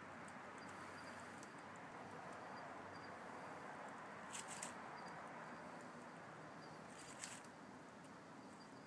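A young possum feeding in a pile of dry leaves: two brief crackles, about four and seven seconds in, over a faint steady hiss.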